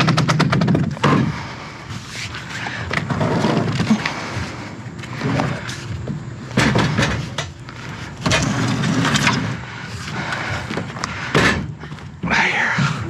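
Things being handled and moved about: a fast rattle of clicks in the first second, then irregular knocks, clatter and scraping.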